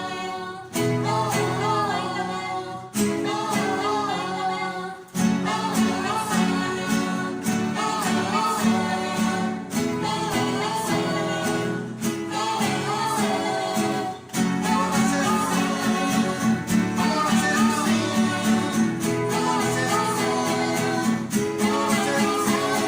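Rondalla ensemble playing an upbeat song: strummed and plucked guitars with voices singing the melody, the music dipping briefly twice between phrases.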